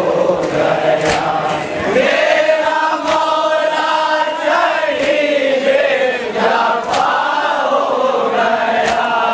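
Men's voices chanting a nauha, a Shia lament, in long drawn-out sung lines. A sharp slap marks the beat about every two seconds.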